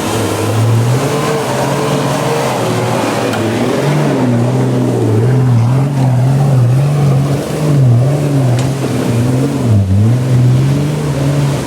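Off-road 4x4's engine running close by, its revs rising and falling again and again as the throttle is worked on and off.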